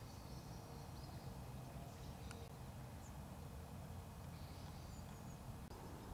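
Faint outdoor ambience: a steady low rumble with a few faint, high bird calls and a single click about two seconds in.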